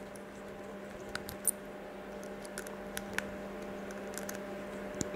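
Small screwdriver turning the terminal screw of a Neutrik Speakon connector insert to clamp a speaker wire: a few faint, scattered clicks and scrapes over a steady low hum.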